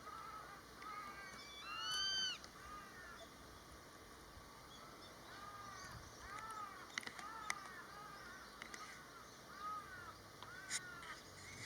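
Grey-faced buzzard calling: one loud, high-pitched two-part "pik-kwee" call about two seconds in, a short rising note leading into a longer arched one. Fainter arched calls follow in the second half, with a few sharp clicks.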